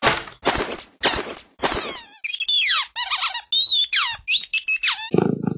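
Cartoon-style little birds chattering: a rapid run of short, squeaky high-pitched calls, many sliding down in pitch. A low buzzing sound comes in near the end.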